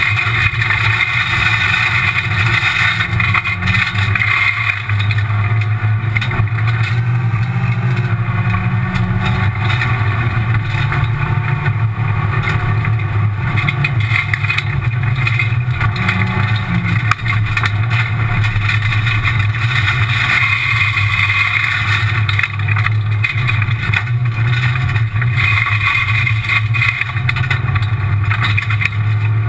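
Rally car engine running hard on a gravel special stage, heard from inside the stripped cabin; the revs rise and fall, with a constant rattle of gravel and road noise against the body.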